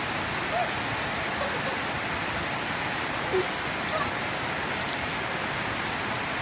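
Heavy rain falling steadily on a yard, an even hiss that holds at one level throughout.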